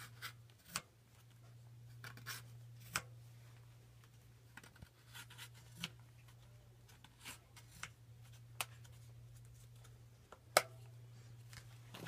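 A plastic tire-installation tool and hands levering a Tannus solid foam tire over a bicycle rim: scattered scratches, rubs and clicks, the sharpest about ten and a half seconds in, over a steady low hum.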